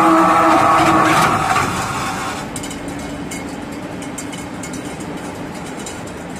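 CNC pot-spinning machine running with a steady whine, which dies away over the first two seconds or so as it winds down. A quieter steady machine hum with light clicks follows.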